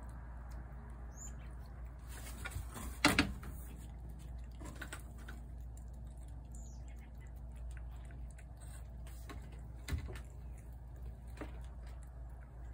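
Cat eating wet food from a plate: faint, irregular small chewing and licking clicks over a steady low hum. A sharp knock about three seconds in, the loudest sound, and a smaller one near ten seconds.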